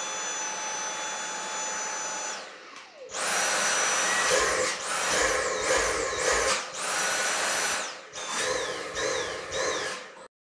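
Dyson V7 cordless vacuum's motor, fitted with an aftermarket HEPA post-motor filter, running with a steady high whine, then winding down about two and a half seconds in. It starts again louder and revs up and down several times, with a short steady stretch in between, and cuts off suddenly near the end.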